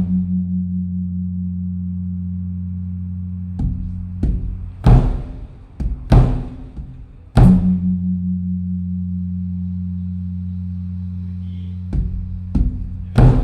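Thai temple evening drum (klong laeng) beaten to signal the Buddhist holy day: heavy, irregular strokes over a deep ringing tone that wavers and holds for seconds. A hard stroke at the start and another about seven and a half seconds in set the ringing going again, with a run of quicker strokes between them and more near the end.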